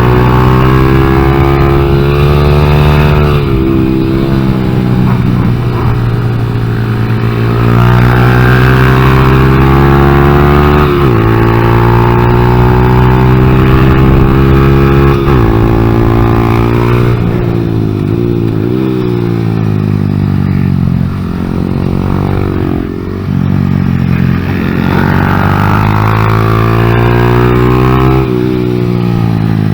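Honda Grom's 125 cc single-cylinder engine under hard riding, its revs repeatedly climbing and then dropping sharply as the throttle is rolled off or gears change.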